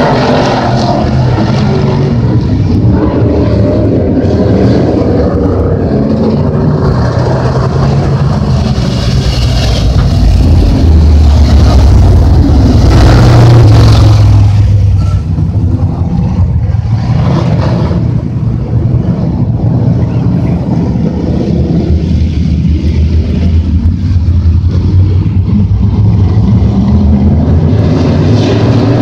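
IMCA Modified race cars' V8 engines running at low throttle as the cars circle slowly under caution. One car passes close about halfway through, when the engine sound is loudest; then it fades back to a steady rumble from the pack across the track.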